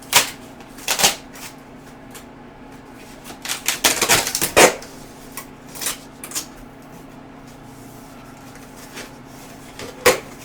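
Cardboard shipping box and packaging being opened and handled: a few sharp knocks and scrapes, with a busy stretch of rustling and bumping about four seconds in, over a faint steady hum.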